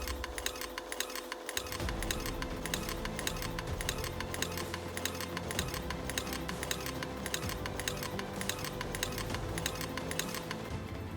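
Fast, even mechanical clicking, many clicks a second, over a steady hum.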